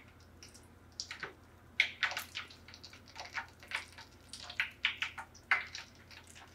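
Battered trout nuggets frying in shallow oil in a pan, the oil crackling and popping irregularly as more pieces are laid in.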